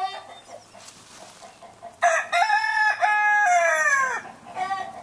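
Barred Rock rooster crowing once: a loud cock-a-doodle-doo starting about two seconds in, lasting about two seconds and ending in a long falling note. Short clucks come at the very start and again near the end.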